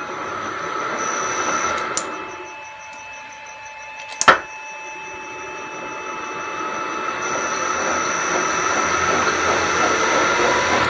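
Lathe motor and belt-driven spindle, run by a variable-frequency drive, spinning up and running down twice, with a sharp click between the runs and a steady high whine throughout. The drive is set to free stop, and the spindle stops much faster.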